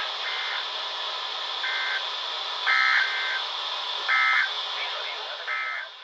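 SAME end-of-message data bursts closing a NOAA Weather Radio Required Weekly Test, played by several Midland weather radios slightly out of step. They come as about five short, harsh two-tone bursts spread over the seconds, over steady radio hiss, and cut off suddenly at the end.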